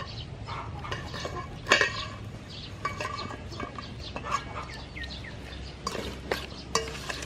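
Metal spoon clinking and scraping in a stainless steel bowl as small octopus are tipped in and stirred into a thick chili sauce, with one louder clink just under two seconds in.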